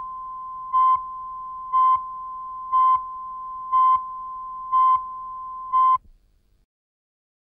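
Video countdown leader beeps: one steady tone with a louder beep once a second, each beep marking a number of the countdown. The tone cuts off about six seconds in.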